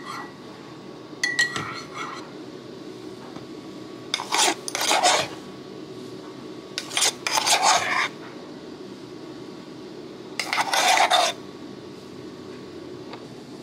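A metal spoon scraping against a ceramic mug and jug as frothed milk is scooped onto a drink, in four separate scrapes of about a second each, over a steady low hum.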